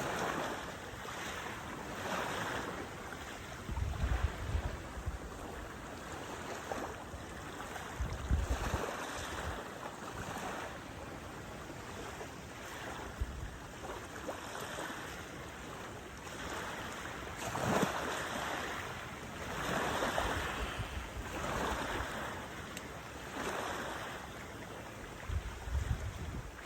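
Wind gusting on a phone's microphone, with short low rumbling buffets, over a steady wash of water at the shore.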